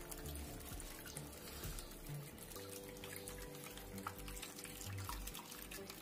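Water from a small tabletop cement waterfall fountain falling in thin streams into a bowl and a pot, trickling and splashing steadily. Faint music with held notes returns under it about halfway through.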